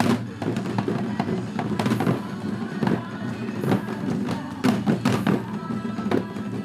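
Janggu, the Korean hourglass drum, struck by a group in time with a trot backing track, with sharp drum strokes over the music.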